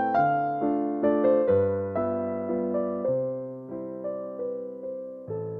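Background piano music: a gentle melody of struck notes that fade out, over a low bass note that changes every second or two.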